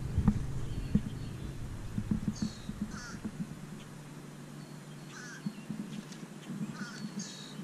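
Short bird calls, repeated several times with gaps between them.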